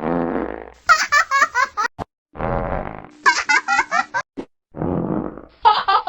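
Cartoon fart sound effect followed by a young cartoon character's high-pitched giggle, the pair repeated three times in a row. Each fart is a short low rumble, and each giggle is a quick string of about six 'ha' syllables.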